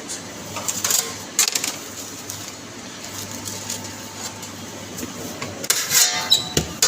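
A sandwich going into a countertop toasting oven: scattered clicks and knocks of the tray and door being handled, then a short rattling clatter near the end.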